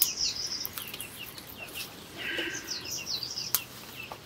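Birds chirping in many short high notes, with one brief clucking call about two and a half seconds in, like a hen's. A few sharp clicks stand out near the start and near the end.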